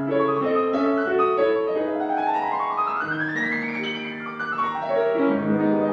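Steinway grand piano being played: a fast run climbs up the keyboard and then sweeps back down over held chords.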